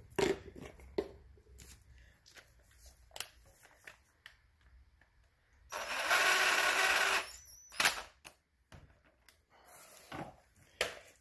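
DeWalt 18V cordless drill run in one steady burst of about a second and a half, about six seconds in, at the front brake of an ATV. Scattered light clicks and knocks come before and after it.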